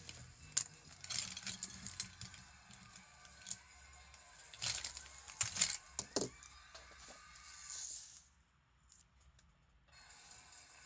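Handling noise: scattered sharp clicks and taps. About eight seconds in, the sound drops almost to silence for nearly two seconds.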